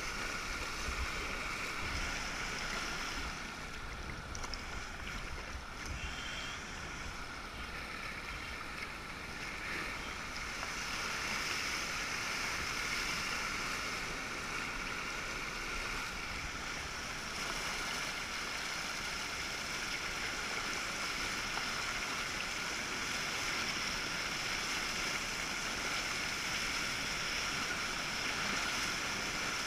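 Water rushing and splashing around a sea kayak's hull and paddle as it is paddled through fast tidal water, a continuous noise picked up by a camera mounted on the deck. Near the end the kayak is surfing a breaking tidal wave.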